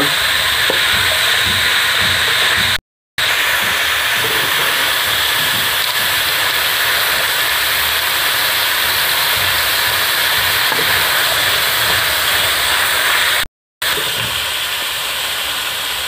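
Chicken cubes and chopped onion, capsicum, peas and carrot sizzling steadily as they fry in oil in a pan, stirred with a wooden spatula. The sound drops out for a moment twice.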